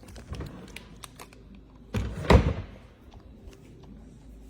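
A few light clicks, then a loud thud about two seconds in, followed at once by a second, louder one.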